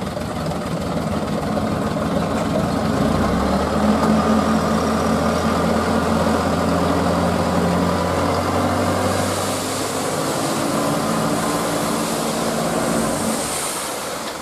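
Dump truck's diesel engine running while its hydraulic hoist tips the bed, with a steady low hum that comes in about three seconds in and drops away near the end. A hiss builds in the second half as the sand load slides off the tilted bed.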